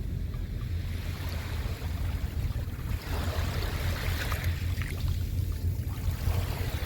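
Wind rumbling on the microphone, with waves washing onto the shore in swells about three seconds in and again near the end.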